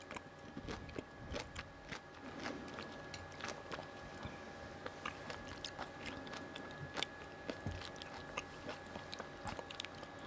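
A person biting into and chewing fresh Sato Nishiki cherries close to the microphone: a string of small, irregular clicks and wet crunches.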